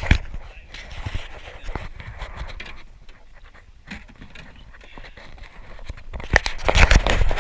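Scattered knocks, scrapes and clatter of gear handled on a small boat, over a low wind rumble on the microphone, with a louder run of knocks near the end.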